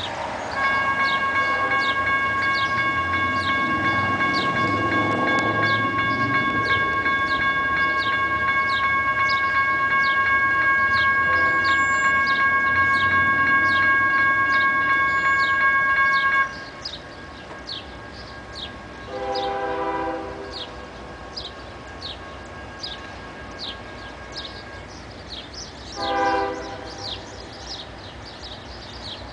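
Air horn of an approaching CSX freight train's lead locomotive, an ES44DC, sounding for grade crossings: one long, steady chord held for about sixteen seconds and cut off suddenly, then a shorter blast a few seconds later and a brief toot near the end. A high chirp repeats about once a second in the background.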